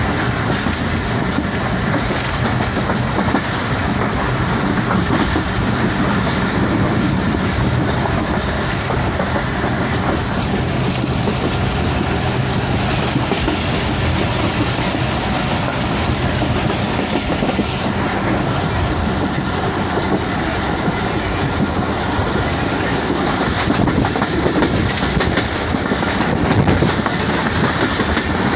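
Passenger train running along the track, heard from on board: a steady, loud rumble of wheels on rails with the rattle of the carriage.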